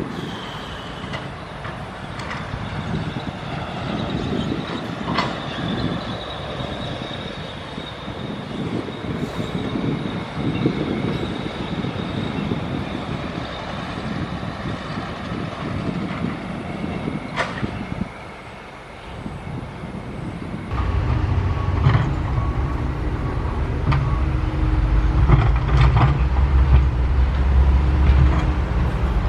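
SANY SY135F hydraulic excavator working: its diesel engine runs under a steady high-pitched whine, with a few sharp metallic clanks. After a short lull about 18 seconds in, the engine comes back as a much louder, deep steady drone.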